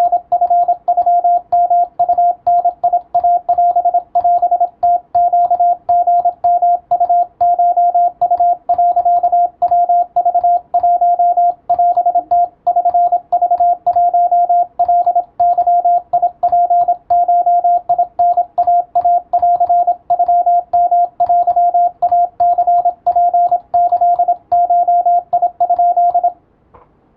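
Japanese (wabun) Morse code sent as a single steady tone keyed on and off in dots and dashes, stopping near the end.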